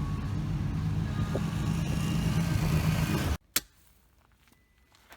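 Motor vehicle running with a steady low rumble, cut off abruptly about three and a half seconds in, followed by a single sharp click and near silence.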